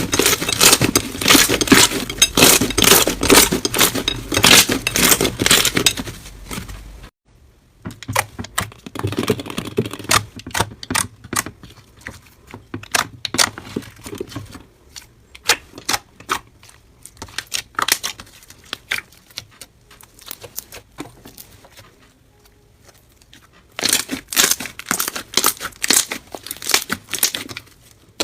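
Slime being handled and squeezed, giving runs of sticky crackles and pops. The crackling is dense at first, stops dead about seven seconds in, comes back as scattered pops, and turns dense again near the end.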